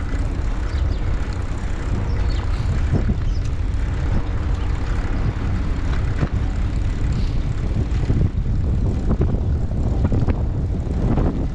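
Steady low rumble of wind on the microphone mixed with tyre noise as an ICE Adventure HD recumbent trike rolls along a tarmac road, with a few small knocks.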